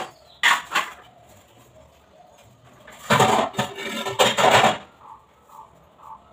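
Steel kitchen utensils clattering and clinking at a sink: a short clatter about half a second in, then a longer, louder stretch of clatter from about three seconds in.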